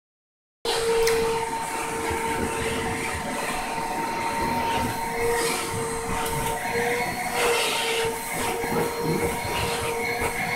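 Vacuum cleaner running steadily, a high motor whine over a rushing hiss, starting about half a second in.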